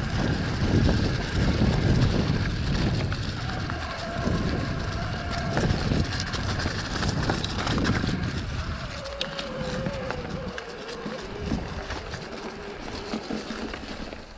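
Electric mountain bike ridden over a leafy dirt trail: tyre rumble, rattling and wind buffeting on the microphone, loudest in the first half. Through it runs the Shimano mid-drive motor's thin whine, which drops slowly in pitch over the last few seconds as the pace eases.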